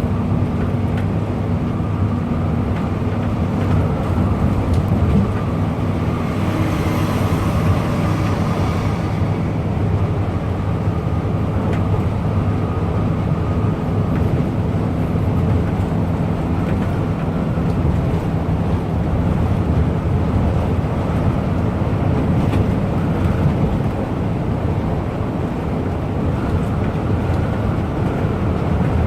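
Intercity bus engine running steadily under way, with road noise, and a hiss lasting about two seconds around seven seconds in.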